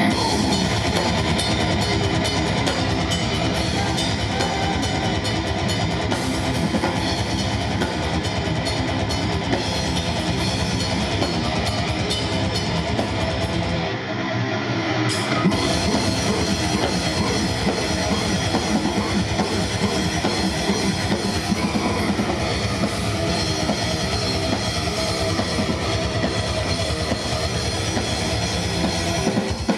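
Rock music with a drum kit and electric guitar playing an instrumental passage between sung choruses, with a brief drop in the band's fullness about halfway through.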